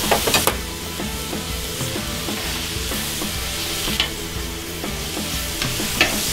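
Steak cubes sizzling on a hot flat-top griddle, with metal tongs clicking against the griddle as the pieces are turned: a quick cluster of clicks at the start, then single clicks about four and six seconds in.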